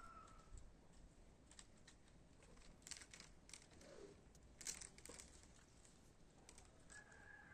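Near silence with faint rustling and a few soft clicks. A cat starts to meow near the end.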